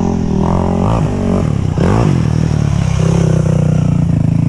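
Yamaha YFZ450 quad's single-cylinder four-stroke engine revving up and down several times as the quad is ridden, then running at a steadier pitch for the last second or so.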